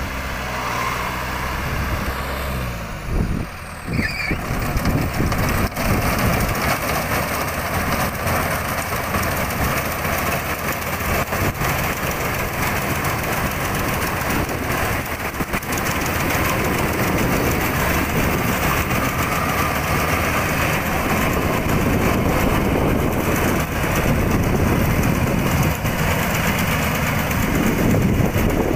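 Old rice combine harvester's diesel engine running as the machine cuts and threshes rice. Its even hum turns rougher and noisier about four seconds in, after a brief dip.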